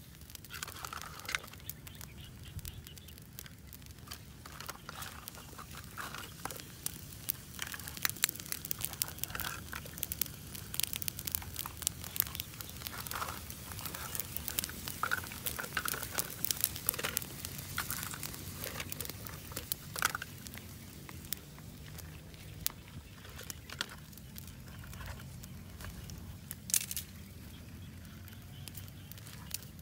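Wood fire crackling and popping under mussels roasting in their shells on a bamboo grill, with many sharp irregular snaps, thickest in the middle stretch.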